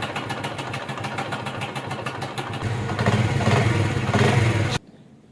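Honda CD 70 single-cylinder four-stroke motorcycle engine running with a fast, steady ticking rattle, the sound of a noisy, slack timing chain. It gets louder about halfway through and cuts off suddenly near the end.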